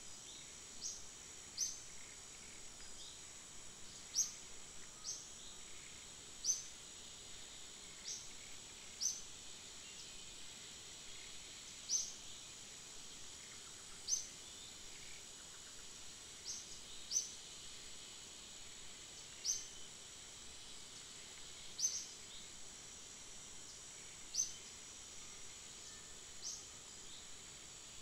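Outdoor forest ambience: a steady high insect drone, with short, high, falling chirps repeating irregularly every one to two seconds.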